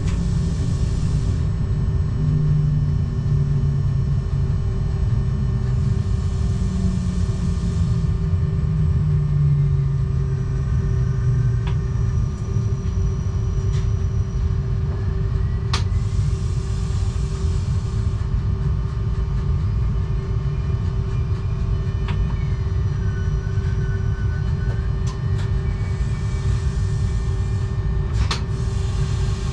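Z 20500 double-deck electric train running, heard from the cab: a steady low rumble of wheels on rail with a constant hum, and a low tone that falls in pitch over the first ten seconds. There are a few sharp clicks, and short bursts of hiss come about every ten seconds.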